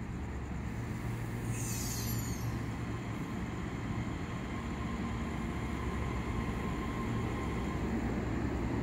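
Taiwan Railway EMU3000 electric multiple unit pulling out of the station: a steady low rumble of its wheels and motors that grows slightly louder as it gathers speed, with a brief high hiss about two seconds in.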